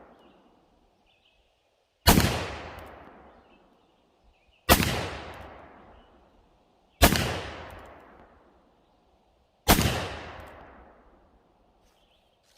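Four shots from a .44 cap-and-ball black-powder revolver, a reproduction 1851 Colt Navy, fired about every two and a half seconds. Each shot is a sharp bang with a long echoing decay.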